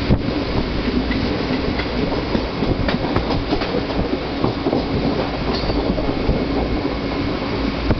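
Express passenger train running on the rails, heard from on board: a steady rumble of wheels on track with scattered clicks.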